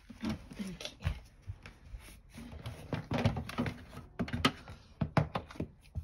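Plastic knocks and clicks from a food dehydrator's stacked trays and housing being handled and set in place, with a cluster of sharp knocks in the second half.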